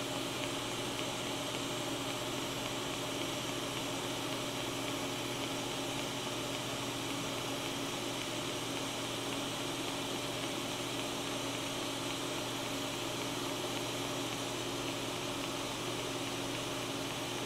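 TIG welding arc burning steadily, a constant hiss with a low hum under it, as the torch runs around a tube joint turned by a welding positioner.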